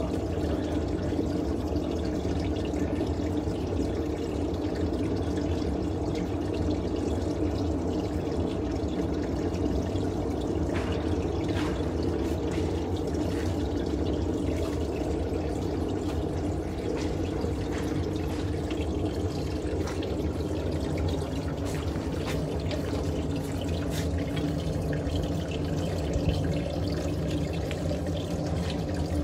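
Portable mini glassblowing furnace running, a steady rushing noise from its burner.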